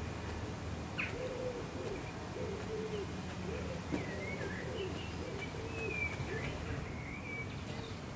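Birds calling: a string of short, low calls that rise and fall, joined from about four seconds in by higher warbling calls, over a steady low hum. A single click sounds about a second in.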